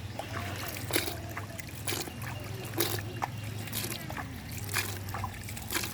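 Water splashing in about six short, irregular splashes, over faint background voices.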